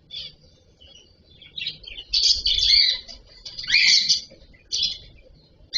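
Cockatiel chirping in a run of short, harsh calls, with one call sweeping down in pitch about four seconds in.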